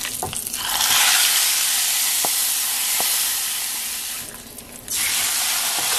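Hot ghee tempering of mustard seeds, cumin, dried chillies and curry leaves poured into a pot of rasam, sizzling loudly as the hot fat hits the liquid. The hiss starts about a second in, fades near four seconds, and flares up again about five seconds in.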